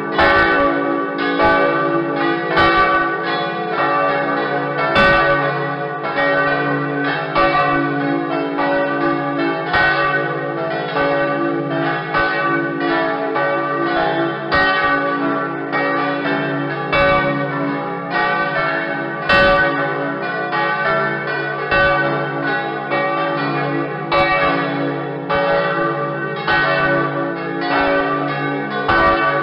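A peal of several church bells ringing continuously, new strokes coming a few times a second over the hum of the earlier ones.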